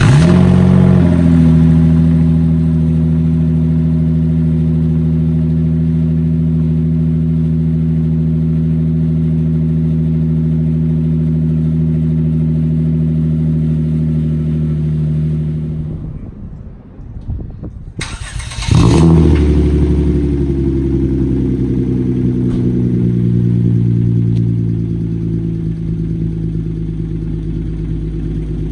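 Hyundai Genesis Coupe engine started and idling steadily through its exhaust. It is shut off about 16 seconds in, restarted about two seconds later and idles again, settling slightly lower near the end.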